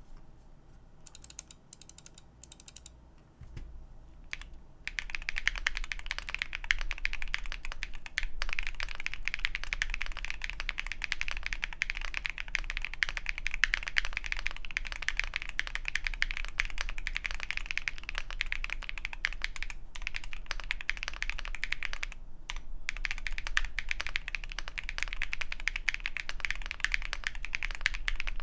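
Typing on an Akko MOD006 custom mechanical keyboard with KNC Keys Green Jacket linear switches on a polycarbonate plate and doubleshot PBT keycaps. A few separate keystrokes come first, then fast, continuous typing from about five seconds in, with a short pause a little past twenty seconds.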